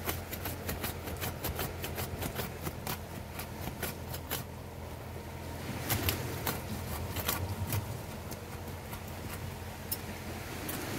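A blade chopping at the roots of a mustam tree stump being dug out: a quick run of sharp strikes, about four a second, then a few spaced strikes in the second half.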